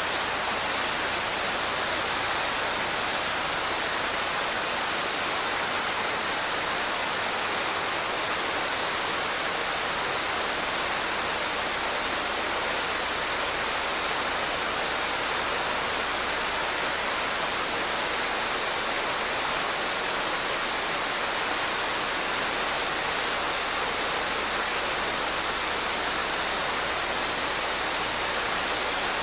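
Mountain stream rushing steadily over rocks and small falls, an even, unbroken roar of water.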